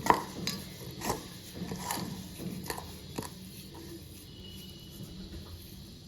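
Hands rubbing a wet masala paste of chilli powder, turmeric, salt and oil into scored chicken leg pieces, soft squishing with a few light knocks in the first three seconds, then quieter.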